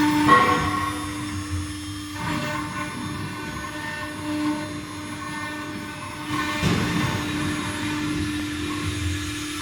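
CNC stone router's spindle motor running with a steady whine while the bit cuts into stone. The cutting noise eases about two seconds in and swells again near the seven-second mark.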